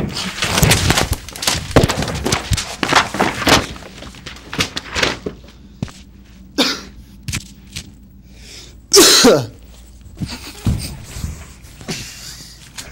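A person scuffling and falling against a wall and floor: a dense run of knocks and thumps, then scattered bumps, and one loud short burst that falls in pitch about nine seconds in.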